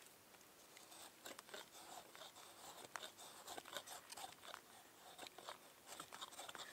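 Faint, scattered scraping and crunching of a knife blade shaving curls off a stick of waxy fatwood to make a feather stick.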